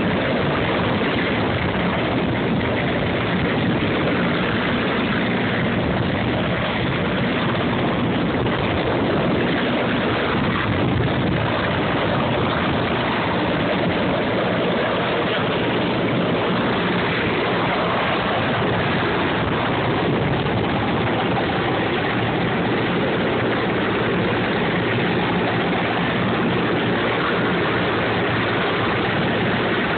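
Helicopter engine and rotor running, a loud steady drone that holds level throughout.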